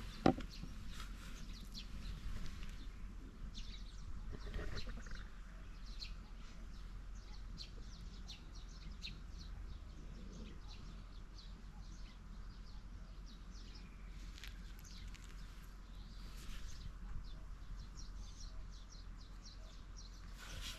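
Small birds chirping in short, irregular calls over a steady low rumble, with a single knock just after the start.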